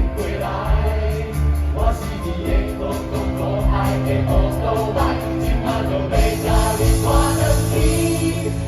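A song with a group of voices singing together over a band, with a steady beat. About six seconds in, the music grows brighter, as if cymbals come in.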